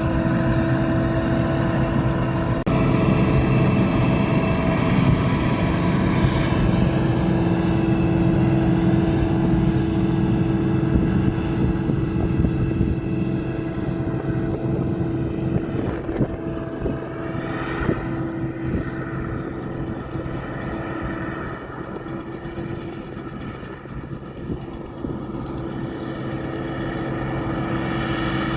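Combine harvester running steadily with a constant machine drone. It grows fainter through the middle and louder again near the end.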